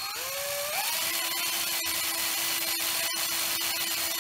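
Electric drill spinning a Smiths speedometer's drive cable for a bench test of the re-magnetised drive magnet. Its whine rises in pitch over the first second as it comes up to full speed, then holds steady.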